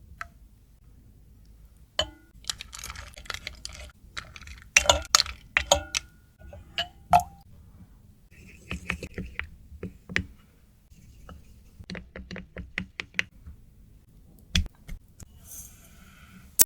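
Kitchen utensils clinking, tapping and knocking against a bowl while chocolate milk is being mixed. The sounds come as irregular sharp clicks, some with a short ring, with runs of quick taps in the second half.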